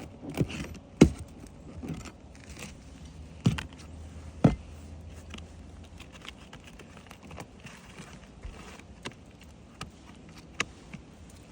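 Asphalt roof shingles being handled and lifted during a repairability test: scattered crackles and taps, with a few sharp knocks in the first five seconds and lighter ticks after.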